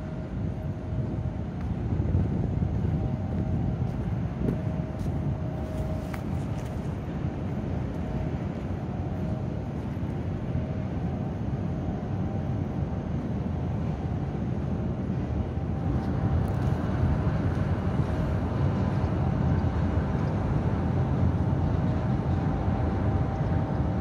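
Wind buffeting the microphone as a fluttering low rumble, over a faint steady hum of machinery; the rumble grows louder about two-thirds of the way through.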